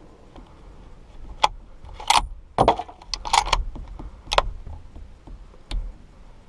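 Scoped rifle being handled inside a wooden box blind: a string of about seven sharp clicks and knocks, the loudest about two and a half seconds in.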